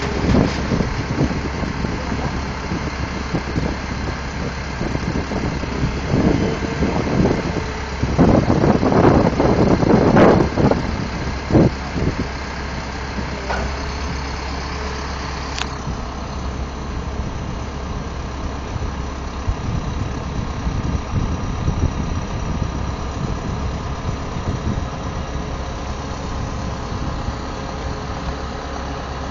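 Crane engine idling steadily, with a few louder bursts between about six and twelve seconds in.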